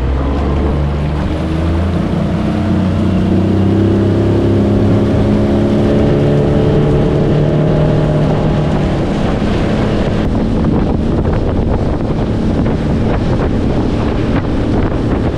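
Suzuki 25 hp tiller outboard opened up from low revs, its pitch rising over the first few seconds as the skiff speeds up, then running steady at speed. Water rushing past the hull and wind on the microphone mix in.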